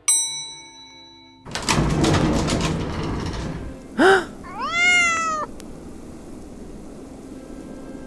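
Sound effects: an elevator ding rings and fades over about a second, followed by a two-second whooshing rush, then a cat meowing twice, a short call and then a longer one that rises and falls, over quiet background music.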